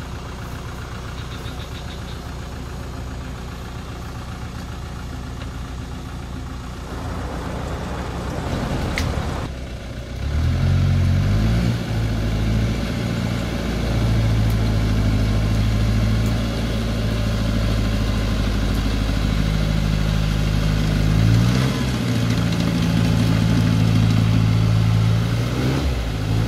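Vehicle engine running at a low idle, then a louder engine comes in about ten seconds in with its pitch rising. It runs steadily and revs up again about twenty-one seconds in.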